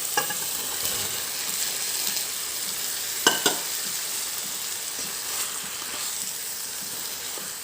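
A pan of onion, tomato and yogurt masala sizzling steadily as fried chicken pieces are stirred in with a spoon. There is a sharp clink of the spoon on the pan at the start and two more about three seconds in.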